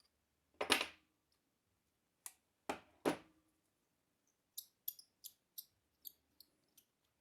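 Metal valve parts of a Sheridan PGP paintball marker being handled during disassembly of its cartridge valve: four sharp knocks in the first half, the loudest about a second in, then a run of about seven light, high clicks, roughly three a second.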